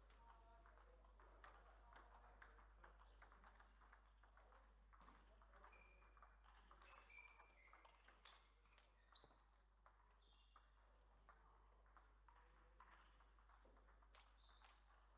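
Faint, irregular clicks of table tennis balls striking bats and tables, with scattered short high squeaks, over a low steady hum.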